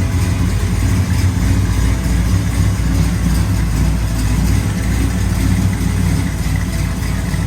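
1968 Camaro SS V8 engine idling steadily with a deep, even exhaust note.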